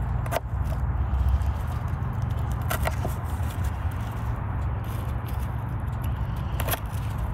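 A knife cutting red onion on a wooden board: a few sharp, spaced knocks of the blade against the board, over a steady low rumble.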